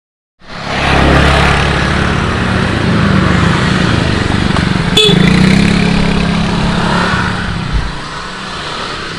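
Motor scooter engines running on the move, with road and wind noise, starting suddenly about half a second in. A single sharp click comes about halfway through.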